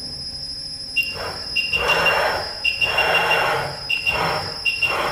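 Millport 3KHUT CNC vertical knee mill running: a steady high tone, with a squeal that starts about a second in and keeps breaking in and out, and swells of rushing noise roughly once a second.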